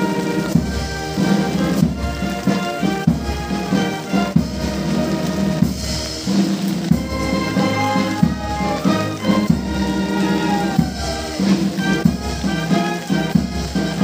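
Brass band music with drums, playing held notes.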